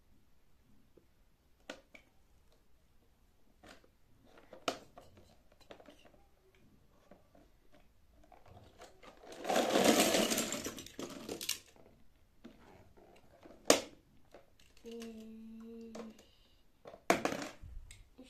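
Small plastic toy cars rattling and clattering as a plastic shape-sorter bucket is tipped over and they pour out onto a rug. The pour lasts about two seconds, about halfway through, with scattered single clicks of the toys being handled before and after.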